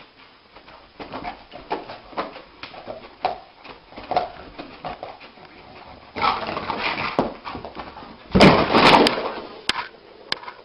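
A dreaming dog whimpering and yipping in its sleep in short bursts, about two a second. Near the end comes a louder, noisy burst of scuffling as it thrashes and scrambles to its feet.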